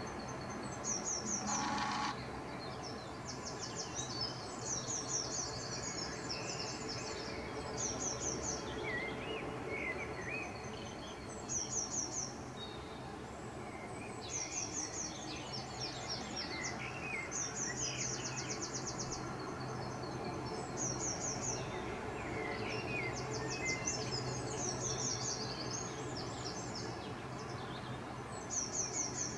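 Several songbirds singing in a dawn chorus: high, rapid trills repeated every second or two, with lower warbling notes between them, over a steady low background hum.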